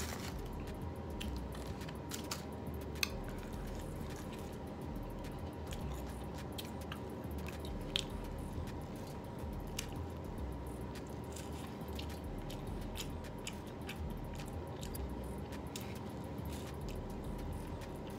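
A person eating Wingstop takeout by hand close to the microphone: biting and chewing with wet mouth sounds, and many short sharp clicks scattered throughout, the loudest about three and eight seconds in.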